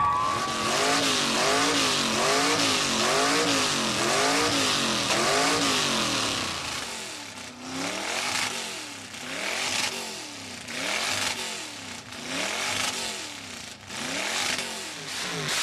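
A car engine revved over and over, its pitch rising and falling about once a second, then in slower blips with the sound dropping back between them in the second half.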